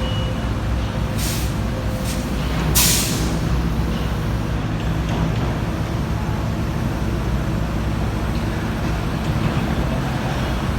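Komatsu PC350-7 excavator's six-cylinder diesel engine running steadily, with two short hisses about one and three seconds in, the second one louder.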